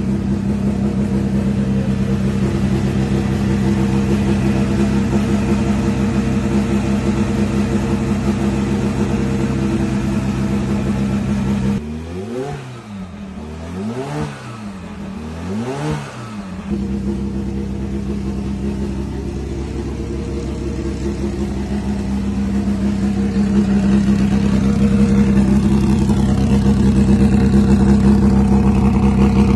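Ford Zakspeed Capri Turbo race car's turbocharged four-cylinder engine running at idle. About halfway through, the pitch rises and falls three times in short throttle blips, and near the end the engine grows louder.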